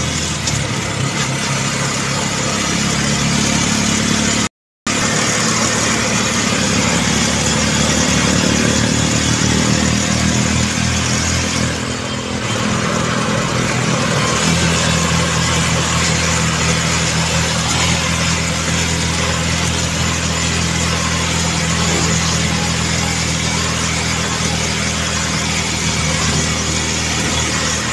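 Motorcycle engine running at road speed with wind rushing over the microphone; the engine note shifts in pitch now and then as it speeds up and eases off. The sound cuts out for a moment about four and a half seconds in.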